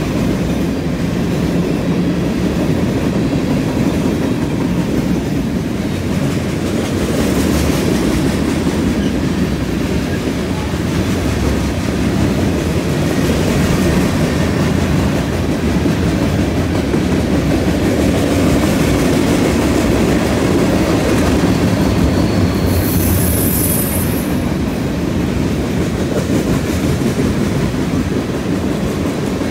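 Freight cars of a passing CN freight train rolling by at close range: a steady rumble and clatter of steel wheels on the rails, with a brief high-pitched wheel squeal about 23 seconds in.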